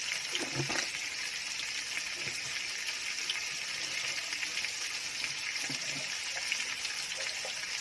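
Pineapple pieces sizzling as they stir-fry in hot oil in a pan, a steady hiss.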